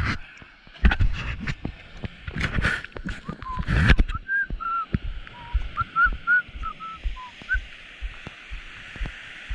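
Handling noise from a GoPro on its surfboard mount: a run of knocks and rubbing as the camera is adjusted by hand. This is followed by a string of about a dozen short whistled notes that rise and fall in pitch, all over a steady hiss of breaking surf.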